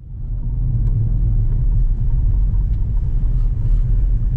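Steady low rumble of a car driving, engine and road noise heard inside the cabin, fading in at the start.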